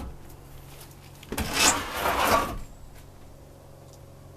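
Old wooden barn door being handled and shifted, a single scraping rub of wood lasting about a second, starting about a second and a half in.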